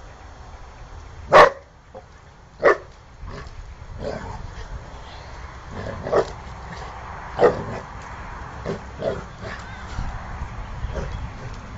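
A Boxador (boxer–Labrador mix) dog barking: a string of short single barks a second or two apart, the loudest about a second and a half in and the later ones weaker.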